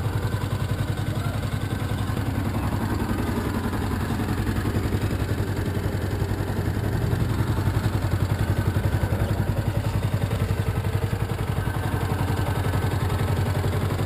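2012 Yamaha YZF-R125's 125 cc single-cylinder four-stroke engine idling steadily, with an even low pulsing beat.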